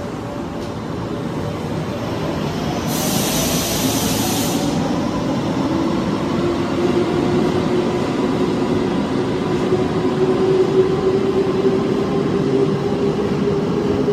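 Subway train moving past a station platform behind the screen doors, its motor whine climbing steadily in pitch as it gathers speed. A short hiss comes about three seconds in.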